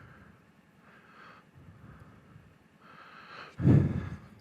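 Close breathing into a helmet-mounted microphone, then about three and a half seconds in a sudden loud low puff of air on the microphone.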